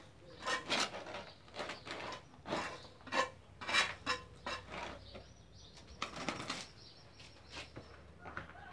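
A run of irregular scrapes and rustles: loose sand and soil being scraped together and scooped up with a small hand tool on a concrete floor.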